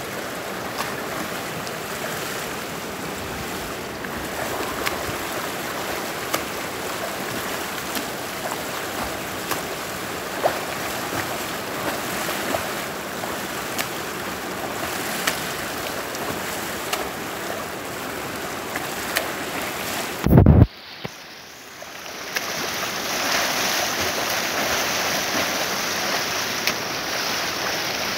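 Pool water splashing and churning from a swimmer doing butterfly strokes, a steady wash of water with small splashes. About twenty seconds in, a brief loud low thump, after which the sound drops away for a moment and returns.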